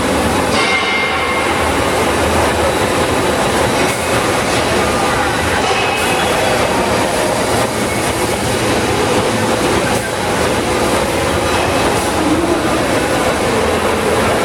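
Oxy-fuel cutting torch running as it cuts thick steel plate: a steady, loud rushing hiss.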